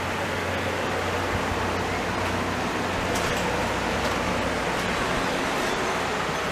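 Steady rushing noise with a low hum, and a few faint clicks about three seconds in.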